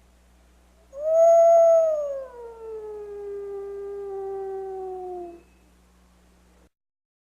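A wolf's single long howl, starting about a second in: it holds a higher note, slides down, and holds a lower note for a few seconds before stopping. A faint low hum lies under it.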